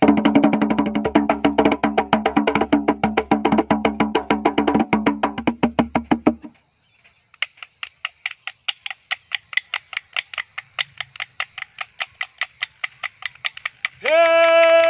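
Wooden sticks struck together as rhythm. First comes a fast, dense clicking over a steady low hum for about six seconds, then a short break, then sharp, even clicks about four or five a second. A long held note comes in near the end.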